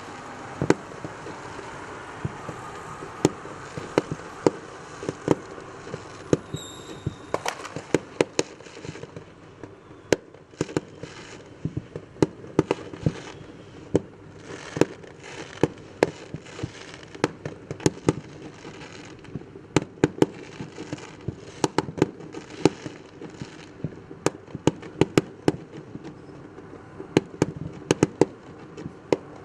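New Year's fireworks going off: a dense, irregular string of sharp bangs and pops over a steady background rumble of more distant bursts, with a short high tone about six and a half seconds in.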